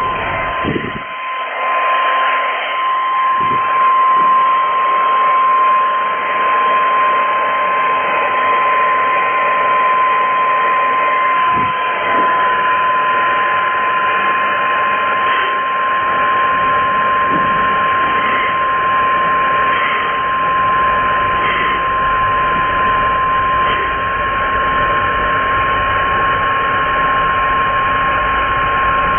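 Hair dryer running: a steady rush of air with a constant high whine through it. A few faint knocks sound in the first seconds and once more near the middle.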